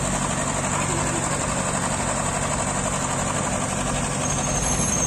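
A crane's heavy engine idling steadily, with no change in pitch or loudness.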